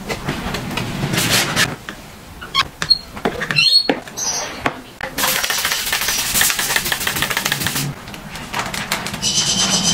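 Squeegee and blade scraper worked over wet, soapy car window glass: scraping strokes, light clicks and a brief squeak, then a steady hiss lasting about three seconds. High ringing tones come in near the end.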